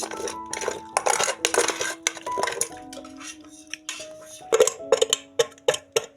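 Metal cutlery scraping and clinking against dishes in a run of short strokes, with a flurry of sharp clinks near the end.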